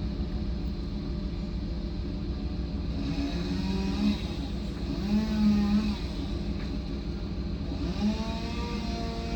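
A truck engine running steadily, revved up several times in short swells that rise and fall in pitch.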